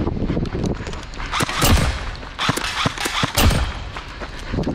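Several short bursts of rapid fire from an MP5-style airsoft gun, each a quick string of sharp shots, the first about a second and a half in.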